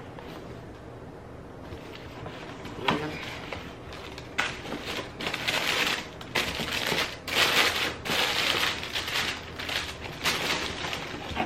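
Packaging crinkling and rustling in repeated bursts as it is handled, starting about four seconds in after a brief tap near three seconds.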